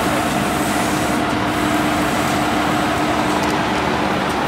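Fire engine's diesel engine running steadily while it pumps water, a constant drone with a steady hum.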